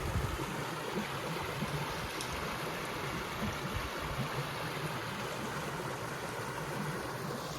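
A small, clear stream flowing steadily, a constant rushing of water.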